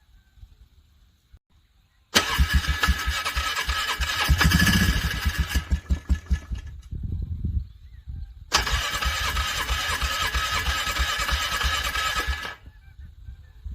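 Engine being cranked by its starter in freezing cold, in two attempts of about three and four seconds, each stopping abruptly. After the first attempt the engine fires briefly and sputters out without starting: a hard cold start that is struggling to crank over.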